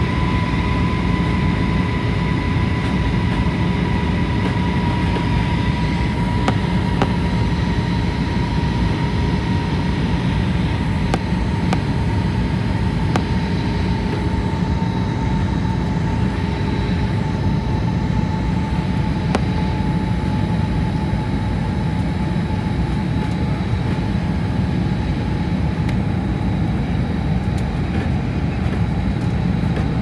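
Airliner cabin noise on the approach to landing: a steady deep rumble of the jet engines and rushing air, heard from inside the cabin, with a thin whine that slowly drops in pitch.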